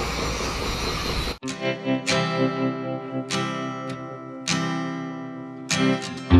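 A short stretch of even outdoor background noise that cuts off abruptly, then background music: slow plucked acoustic guitar, notes struck about once a second and left to ring.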